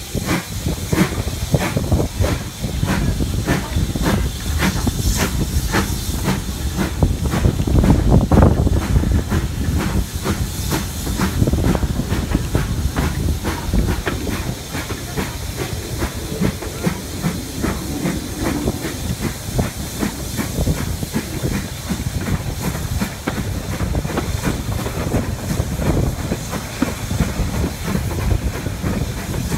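Steam locomotive pulling away from a station, its exhaust chuffs coming quicker as it gathers speed, with steam hiss. Later the beats blend into the steady running noise of the train on the rails.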